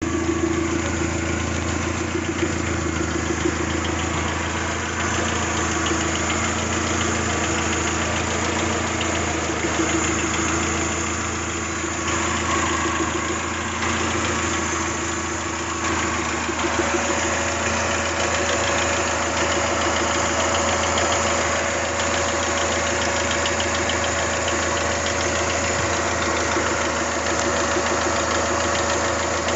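Toyota 3S-GTE turbocharged inline-four engine idling with a minor ticking rattle. A steady whine joins about halfway through.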